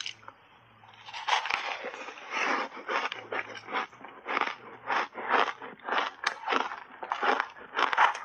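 Refrozen shaved ice being bitten and chewed in big mouthfuls close to a clip-on microphone: a run of crisp crunches, about two a second, starting about a second in.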